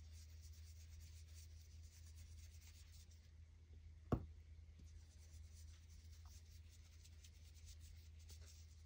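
Faint scratchy rubbing of a foam ink-blending tool worked over paper through a plastic stencil, with one sharp tap about four seconds in. A low steady hum sits underneath.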